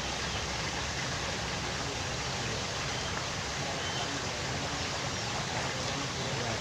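Steady outdoor background hiss with no distinct event, and a few faint, short high chirps.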